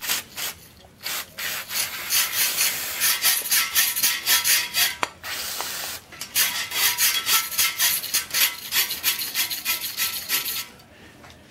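A brush scrubbing fast back and forth in the lifter gallery holes of a cast-iron Ford 351 Cleveland block, bristles rasping on the metal in quick strokes, several a second, to clear out debris and muck after machining. There is a short steady hiss a little past the middle, and the scrubbing stops about a second before the end.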